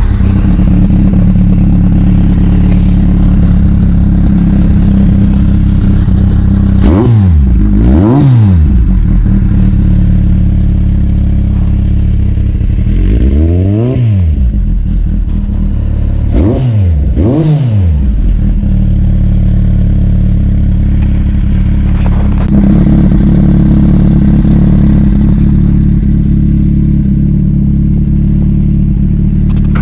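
Kawasaki Z800's inline-four running through a Two Brothers Racing Tarmac slip-on exhaust with its baffle removed, idling steadily and revved with quick throttle blips: two, then one longer, then two more, each rising and falling straight back to idle.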